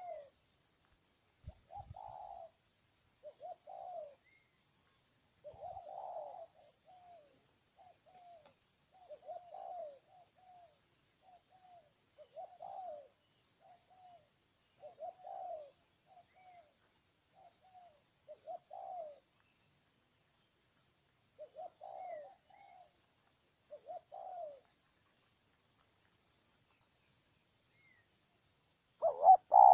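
Spotted dove cooing: short low coo phrases repeated every second or two, the loudest near the end. Faint high chirps of a smaller bird sound throughout.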